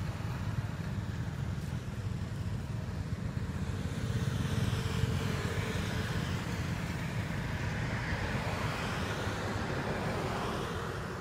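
Road traffic passing on a paved road: a motorbike and then a van going by over a steady low rumble, a little louder about four seconds in.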